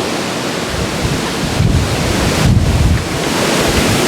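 Strong storm wind blowing and buffeting the microphone, with heavier rumbling gusts from about one and a half to three seconds in.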